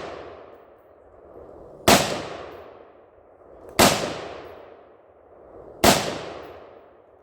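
Three gunshots about two seconds apart, each sharp crack trailing off in a long echo.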